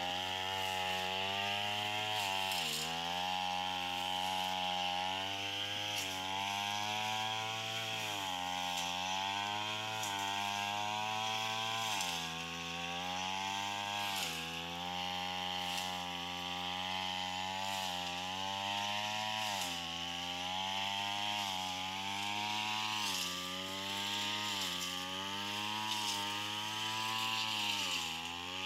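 Backpack brush cutter's small engine running at high revs without pause, its pitch sagging briefly every couple of seconds as the cutting head bites into the grass, then climbing back.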